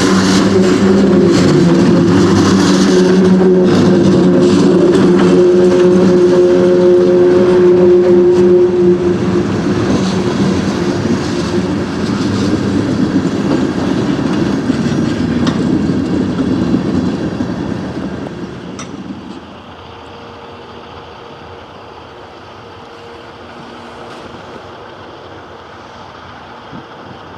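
Railroad tank cars rolling past, their steel wheels clicking over the rail joints with a steady low hum underneath. The sound fades about two-thirds of the way through to a quieter rumble and wind.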